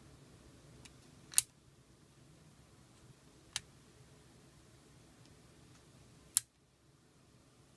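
Swivel hinge of a Contax U4R digital camera clicking as the lens half is rotated against the body: three sharp clicks, about a second and a half in, a fainter one near the middle, and a loud one about six seconds in.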